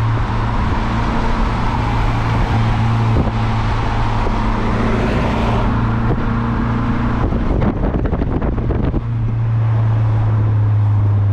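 Car engine and exhaust droning steadily at cruising speed, heard from inside the car with the side window down, with tyre and wind noise. About three-quarters of the way through, a spell of rough wind buffeting breaks in. Near the end the drone begins to drop in pitch as the car eases off.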